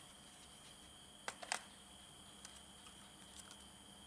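Two sharp clicks about a second in, then a few faint ticks, as an SSD is pushed and pressed down into the laptop's drive bay.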